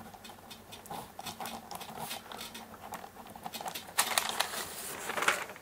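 Faint scattered ticks and light scrapes of a ballpoint pen and paper being handled, with a louder rustle of paper a few seconds in.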